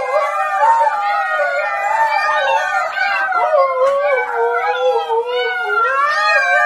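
A litter of husky puppies and an adult husky howling together: many overlapping, wavering howls at once, with no break.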